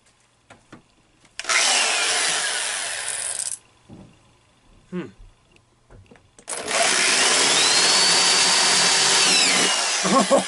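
Electric drill boring out a vending machine's lock with a larger bit, in two runs of about two and three seconds. In the second run the motor's whine rises in pitch, holds, then drops as it stops.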